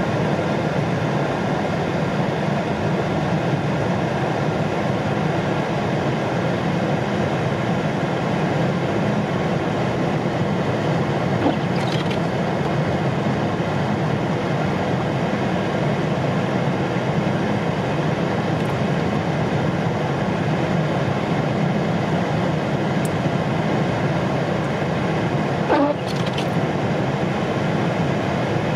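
Steady road and engine noise heard from inside a moving car, low and even, with two brief knocks, one about halfway through and one near the end.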